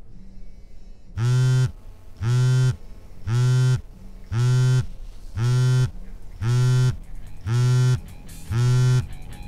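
A low electric buzz pulsing on and off about once a second, each buzz about half a second long, starting about a second in and repeating steadily.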